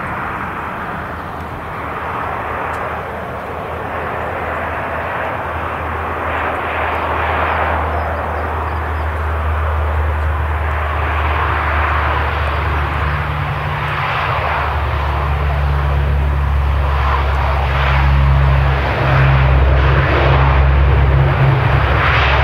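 Lockheed C-130K Hercules landing: the steady drone of its four Allison T56 turboprops and propellers, growing louder as it touches down about halfway through and rolls out along the runway.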